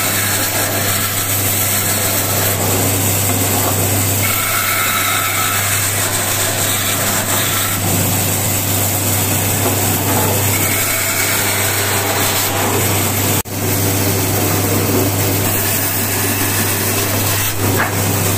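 Band saw running steadily with a low motor hum while its blade cuts through a wooden board fed by hand. The sound drops out for an instant about 13 seconds in.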